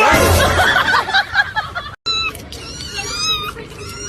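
A loud, harsh animal cry lasting about two seconds, cut off abruptly, followed by a string of high, wavering cat meows.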